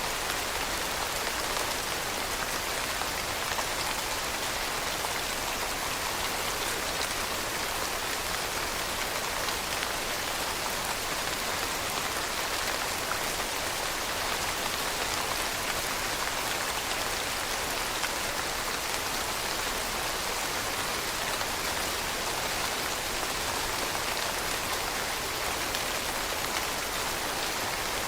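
Steady rain falling, an even hiss of many drops on surfaces with no distinct individual hits standing out.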